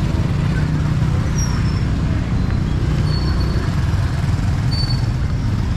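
Steady low rumble of motor traffic close by, with a few brief high chirps over it.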